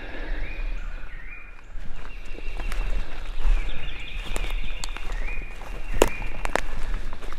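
Footsteps crunching and swishing quickly through leaf litter and brush, getting louder about two seconds in, with a couple of sharp twig snaps near the end. Songbirds whistle steadily in the background.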